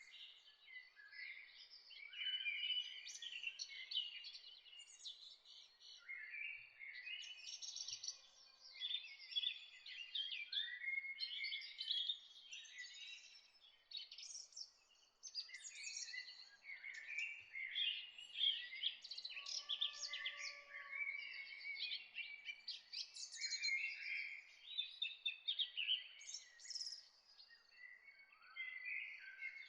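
Several birds singing at once in a dawn chorus: overlapping chirps and warbled phrases, with no pause, over a faint background hiss.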